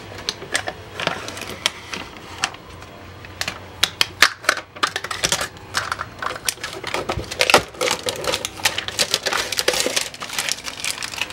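Green masking tape being peeled off a freshly Cerakoted two-stroke engine case and crumpled in the hand: a quick run of crackling clicks that grows denser about halfway through.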